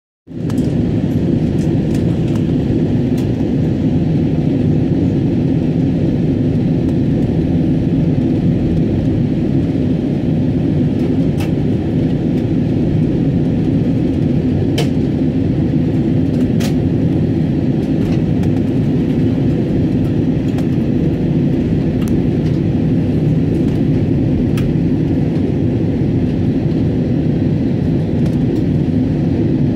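Airbus A320 cabin noise heard from a window seat: the steady roar of engines and airflow on descent, with a faint steady hum through it.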